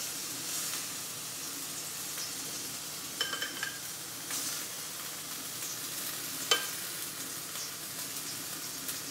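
Olive oil sizzling steadily in a hot frying pan where a scallop skewer wrapped in cured ham is frying. There are a few short clinks about three seconds in and one more past six seconds.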